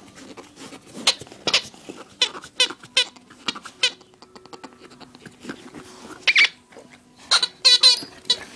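Squeaky dog toy being chewed, giving runs of short, sharp squeaks: a quick series in the first few seconds, one longer squeak about six seconds in, and a fast cluster near the end.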